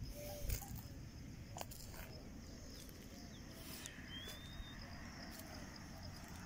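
Rural outdoor ambience: faint bird calls, with a thin whistle about four seconds in, over a low rumble and a few light clicks.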